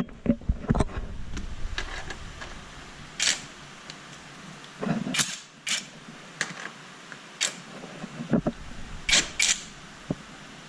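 Irregular clicks and knocks of hand work on car parts, with several short scraping or wiping strokes.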